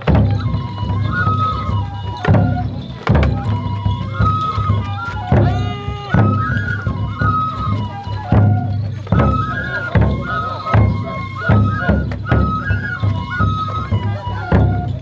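Japanese folk festival music: a high flute melody of held notes stepping up and down over repeated drum strikes.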